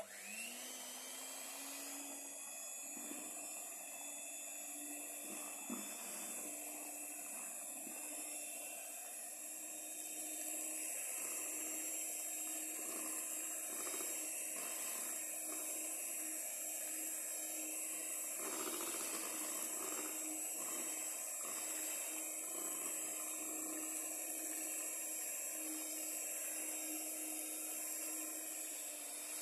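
Miyako electric hand mixer running, its twin wire beaters whisking cake batter in a stainless steel bowl. A steady motor whine with a hiss above it, rising quickly in pitch as it starts up, with a few light knocks of the beaters against the bowl.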